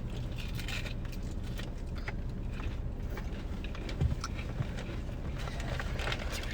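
Steady low rumble of a car cabin with the engine running, over scattered small crackles and clicks of chewing and handling food, with one dull thump about four seconds in.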